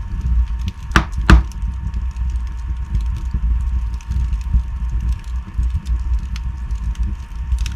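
Wood fire burning in a fireplace, crackling with scattered small ticks over a steady low rumble, with two loud pops in quick succession about a second in.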